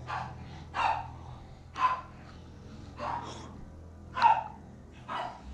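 A person breathing in short, sharp breaths close to the microphone, about one a second.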